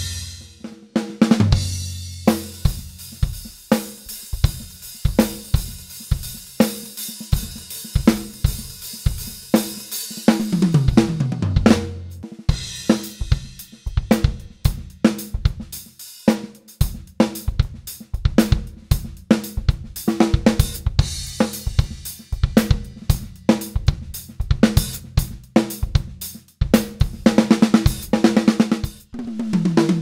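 Soo Custom Drum New Fighter Series drum kit with maple-birch hybrid shells, miked up and played: a steady groove on bass drum, snare, hi-hat and cymbals. Fills run down the toms from high to low about ten seconds in and again near the end.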